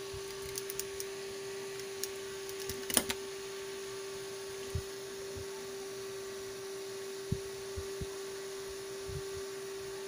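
Quiet handling of headphone parts and a hand tool: a few faint clicks, one sharp click about three seconds in, and scattered soft taps, over a steady electrical hum.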